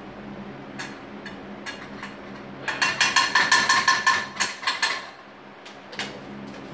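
A few light clicks, then about two seconds of rapid clattering as a utensil stirs and knocks against a ringing metal pan of vegetables, followed by a couple of single knocks.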